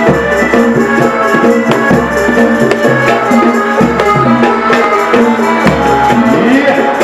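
Loud music with drums and rattling percussion, steady rhythmic strikes under sustained melody notes.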